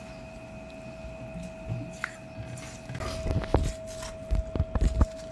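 Metal spoon mashing watermelon flesh inside the rind, with soft squishing, then several sharp clicks and knocks of the spoon from about three seconds in. A steady faint hum runs underneath.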